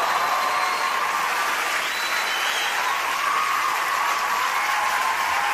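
Audience applauding, with a few drawn-out cheers held over the clapping.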